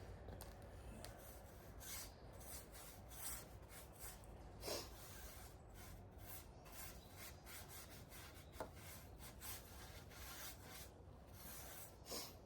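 Faint, irregular strokes rubbing and scraping across wooden boards, by hand.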